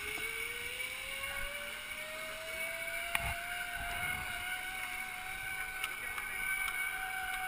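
Zip line trolley pulleys running along the steel cable: a whine that rises in pitch over the first few seconds as the rider gathers speed, then holds steady. A sharp click comes about three seconds in.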